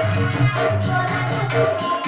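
Music with a steady bass beat and a melody over it.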